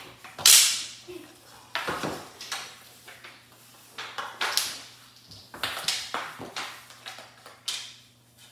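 Floor hockey on a hardwood floor: plastic hockey sticks clacking against the floor and each other in a string of sharp knocks at irregular intervals, the loudest about half a second in.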